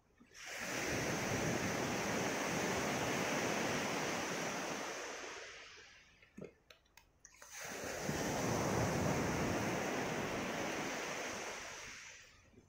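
Two waves breaking and washing up a gravel beach, each a loud rush lasting about five seconds that starts fast and fades away, with a few sharp clicks in the short lull between them.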